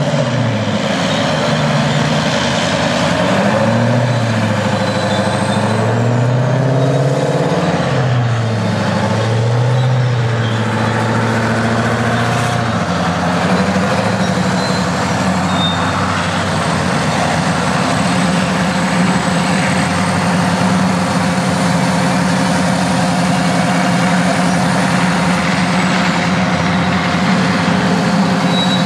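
Heavy diesel engines of an International Harvester Pay Loader 560 wheel loader and a Pay Hauler 350B dump truck working at a loud, steady level. Engine pitch rises and falls repeatedly over the first dozen or so seconds as the loader manoeuvres with its bucket raised, then holds steady while the bucket is emptied into the truck.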